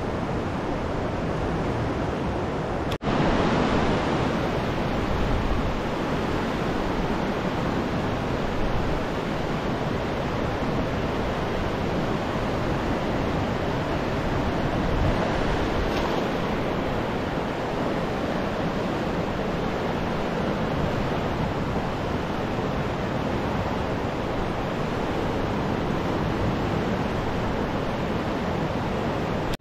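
Fast-flowing, silty river rushing steadily. The sound breaks off for an instant about three seconds in, then comes back a little louder.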